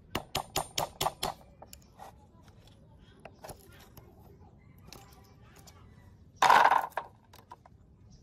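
Metal clicking and tapping of hand work on the rusty governor and throttle linkage of a small 4-stroke engine: a quick run of about seven sharp clicks, then scattered light ticks, and a loud clatter lasting about half a second near the end.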